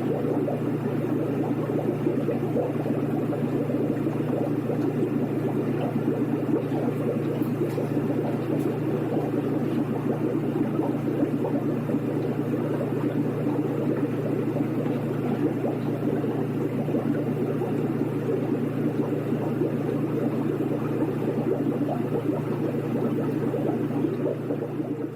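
Aquarium aerator running: the air pump's steady low hum under continuous bubbling in the water. It starts to fade out at the very end.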